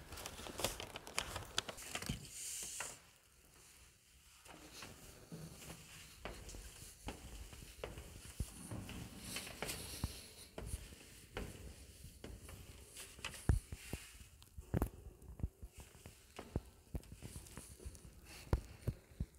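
Handling noise on a phone microphone as it is carried: rustling with scattered, irregular clicks and knocks.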